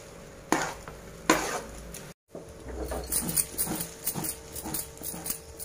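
Metal spoon stirring fried rice in an aluminium pot: two sharp clanks against the pot's side in the first second and a half, then lighter knocks and scraping.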